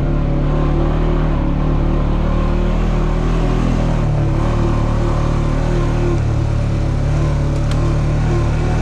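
Quad bike (ATV) engine running at a steady speed while riding along a dirt track, a continuous engine hum with rumble and rattle from the ride over rough ground.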